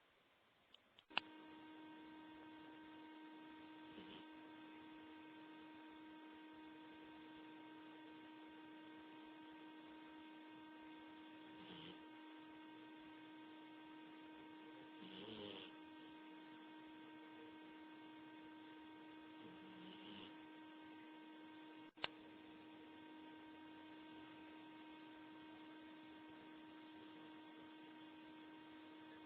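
Steady electrical hum with a clear pitched tone, switching on with a click about a second in. Under it, a few faint soft snores from a small sleeping dog come several seconds apart, and there is a sharp click near the end.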